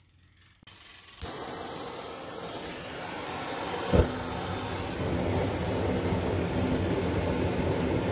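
Propane burner under a brewing kettle running with a steady rushing flame, growing louder over the first few seconds as the gas is turned up. A click about a second in and a single thump about four seconds in.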